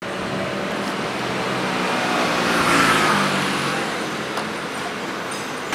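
Street traffic noise, with a motor vehicle passing close and loudest about three seconds in, its pitch falling as it goes by.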